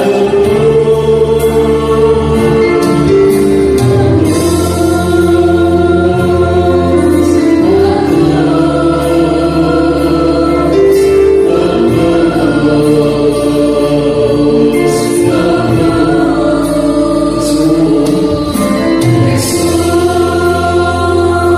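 Choir singing an Arabic Christian hymn over an instrumental backing with long, held bass notes.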